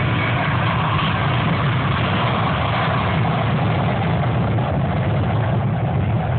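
Boeing 767-300ER's twin jet engines at takeoff thrust, a loud, steady rumble that eases slightly in its upper part during the second half.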